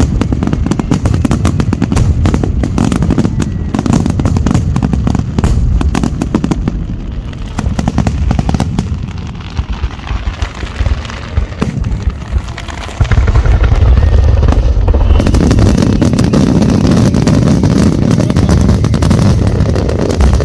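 Aerial fireworks shells bursting in a rapid barrage of bangs and crackles, thinning out about nine seconds in, then a sudden loud, continuous run of explosions with a heavy low rumble from about thirteen seconds on.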